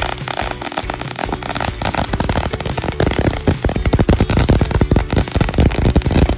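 A large string of firecrackers going off in a rapid, continuous run of sharp bangs, getting louder and denser about halfway through.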